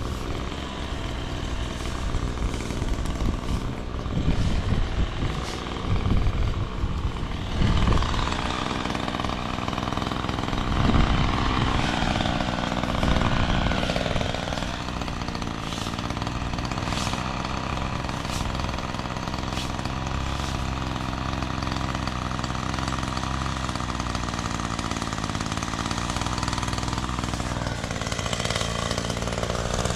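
A motor engine running steadily, with louder, rougher stretches in the first half.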